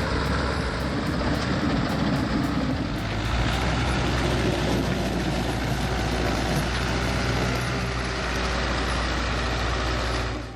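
Heavy vehicle engine running steadily, with mechanical noise over it. It cuts off abruptly at the very end.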